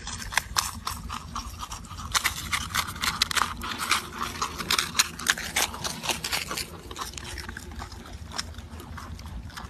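Marmots crunching and nibbling on a dry cracker, a fast irregular patter of crisp crunches, busiest in the middle, over a low steady rumble.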